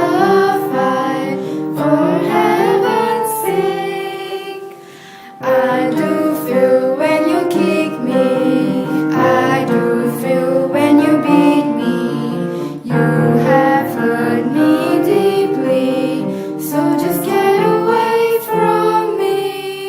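A song: a female voice singing over instrumental accompaniment, with a brief quieter dip about five seconds in.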